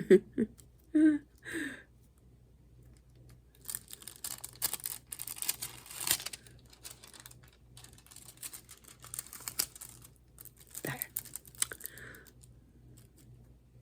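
Close-up rustling and quick light clicking of hands working with craft materials, in a dense run through the middle, with a brief word near the end.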